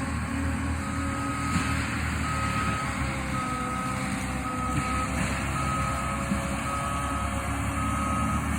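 Backup alarm of a heavy land-clearing machine beeping seven times, about one beep a second, over its steady engine rumble as it reverses.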